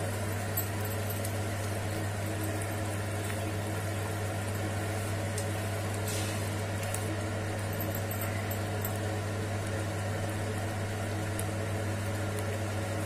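A steady low electrical-sounding hum, with a wooden spatula stirring thick gravy in a nonstick pan and giving a few faint scrapes and ticks.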